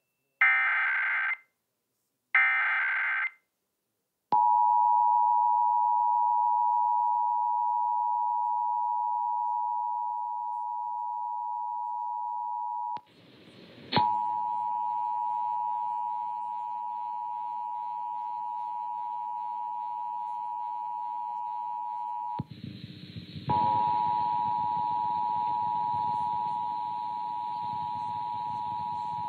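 Emergency Alert System test audio. The last two SAME header data bursts, each about a second long, are followed by the steady EAS two-tone attention signal. The tone breaks off about 13 seconds in and comes back after a click with a buzzy hum under it. It drops out again for about a second near 22 seconds in and resumes over a hiss.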